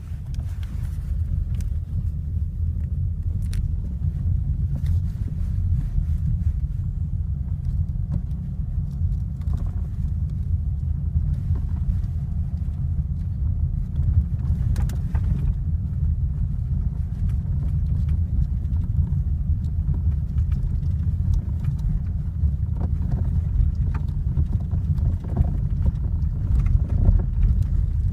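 Kia Ceed JD on the move, a steady low road-and-cabin rumble with a few faint, scattered knocks, a sign the owner puts down to a fault in the electric power steering.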